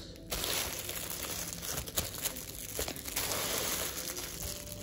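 Clear plastic wrappers crinkling as small fridge-magnet toys in them are handled and pulled open, with a couple of sharper clicks.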